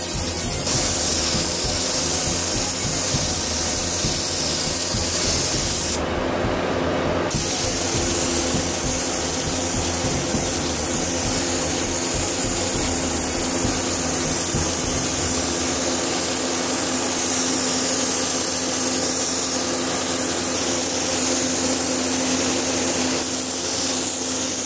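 Gravity-feed air spray gun hissing steadily as it sprays primer onto a truck bed panel, with a brief break of about a second around six seconds in.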